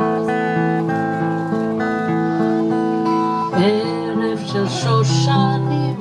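Acoustic guitar music with plucked notes, and a voice briefly over it about three and a half seconds in.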